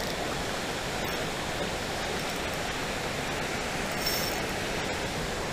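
Shallow creek water running over rocks: a steady, even rush.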